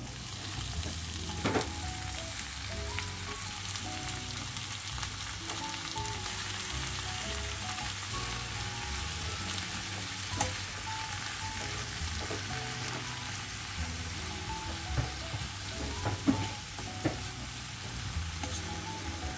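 Fresh spinach leaves sizzling in butter and garlic in a non-stick frying pan: a steady sizzle, with a few sharp taps and scrapes of a spatula as the leaves are stirred and wilt.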